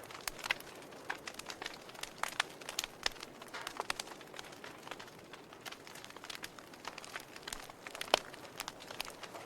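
Wood fire burning in a fireplace, crackling with irregular sharp pops over a soft, steady hiss; the loudest pop comes about eight seconds in.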